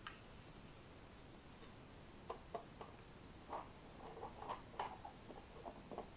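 Faint light taps and clicks of paint bottles and plastic cups being handled, scattered irregularly from about two seconds in.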